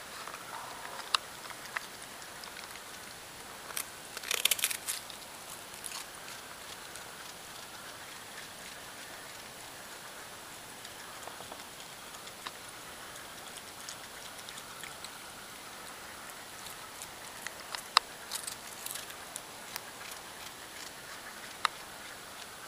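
A raccoon crunching crackers: scattered crisp cracks, with a quick cluster about four seconds in and another around eighteen seconds in.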